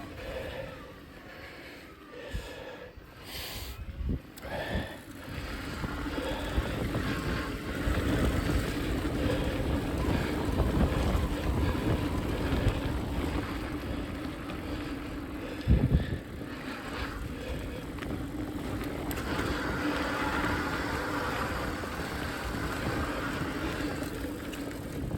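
Mountain bike riding along a trail: wind on the microphone over a steady low hum, with a sharp knock about sixteen seconds in.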